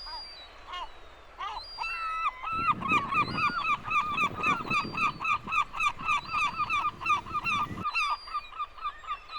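A gull's long call: a few drawn-out, falling cries, then a fast run of laughing notes, about five a second, that carries on almost to the end. A low rumble sits underneath for most of the run.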